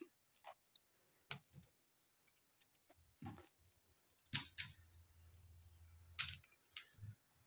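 Plastic ring hangers being laid down on one another on a woven mat: scattered light clicks and clatters, the loudest about four and a half and six seconds in.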